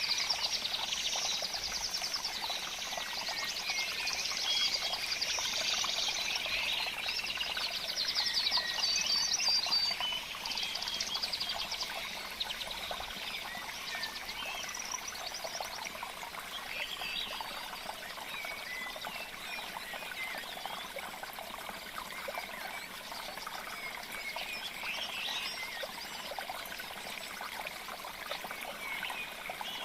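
Dense chorus of many small birds chirping and trilling at once, busiest in the first ten seconds and thinning to scattered calls after.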